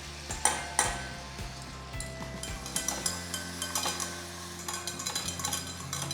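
A metal utensil scraping and clinking against a saucepan as flour is stirred into melted butter to make a roux for white sauce, with a faint sizzle. A couple of knocks come early on, and the scraping grows busier after about two and a half seconds.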